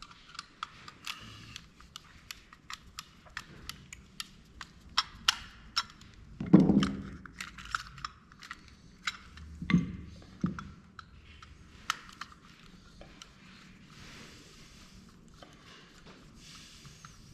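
Small plastic and metal parts of a dome security camera clicking and tapping as they are handled and taken apart, with louder knocks about six and a half seconds in and again around ten seconds.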